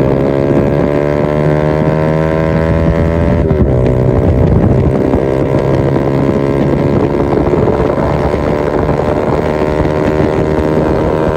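Motorcycle engine accelerating hard through the gears, its pitch climbing steadily, with a sharp drop and renewed climb at an upshift about three and a half seconds in. Wind rushes over the microphone throughout.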